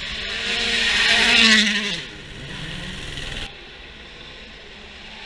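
Rally car at full speed on a gravel stage, its engine note rising as it approaches and passes close by, then dropping in pitch as it goes away. The sound cuts off suddenly about three and a half seconds in.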